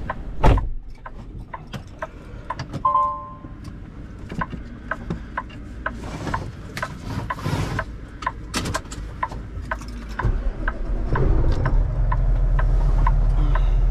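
Semi-truck sounds: a loud knock about half a second in, then scattered clicks and rubbing over a regular ticking, typical of hazard flashers. From about eleven seconds in, the diesel engine's steady low running comes up louder.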